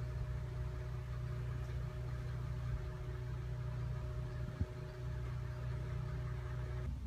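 Heavy construction machinery engine idling steadily: a low hum with a faint steady whine above it that cuts off near the end. A single thump about four and a half seconds in.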